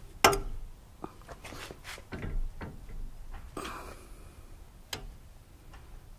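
Adjustable wrench clinking and knocking against the steel pump fitting of a hydraulic bottle jack as the pump is worked loose. There is one sharp click a moment in, the loudest, then scattered knocks and clinks, with a last click near the end.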